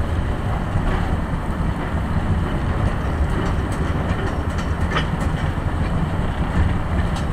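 Small rail vehicle with a manual clutch moving slowly along the track: a steady engine rumble with wheel and track noise, and a couple of sharp clicks about five seconds in and near the end.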